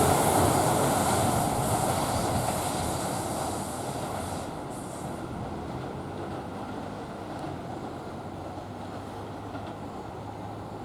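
Keisei 3000-series electric commuter train running away along the track. Its wheel and running noise fades steadily over the first five seconds or so, leaving a quieter, steady low background.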